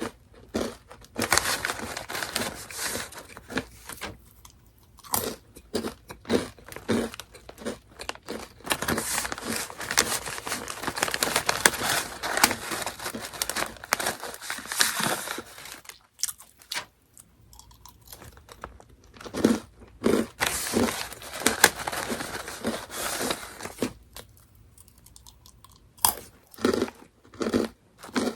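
Crunching and chewing of Orion Mala Chicken Pop snack crackers close to the microphone, in runs of crisp, rapid crackles broken by short, quieter pauses between mouthfuls.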